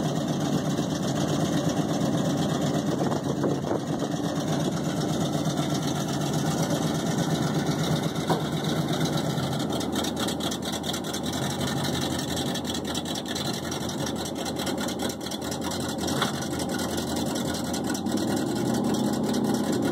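Chevrolet 3/4-ton pickup engines idling steadily as one truck creeps forward to take up the slack in a tow chain.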